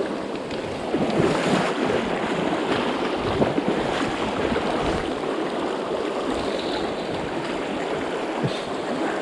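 Fast, shallow river current rushing over rocks close to the microphone, a steady wash of moving water.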